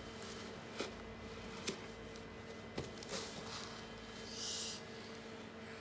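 Cardboard box flaps being handled: three light taps spread over the first three seconds, then a short scraping rub of cardboard about four and a half seconds in, the loudest sound. A faint steady hum runs underneath.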